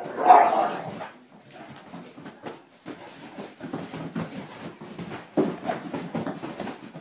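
Two young Great Danes play-fighting on a sofa: a loud dog vocal outburst in the first second, then ongoing scuffling and thumps with further dog noises around five and a half seconds in.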